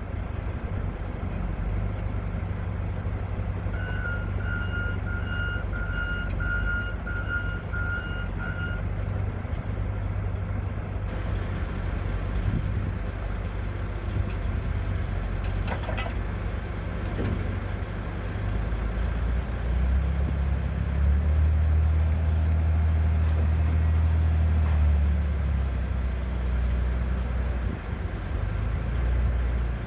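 Wheel loader's diesel engine running, with its backup alarm beeping steadily for about five seconds a few seconds in. Later the engine works harder and runs louder for several seconds before easing off.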